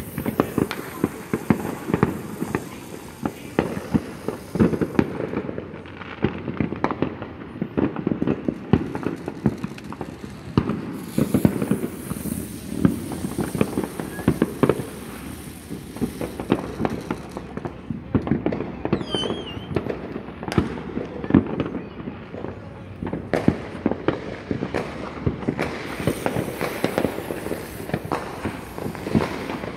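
Many fireworks and firecrackers going off across a neighbourhood: a dense, continuous crackle of bangs and pops, near and distant. A brief wavering whistle sounds about two-thirds of the way through.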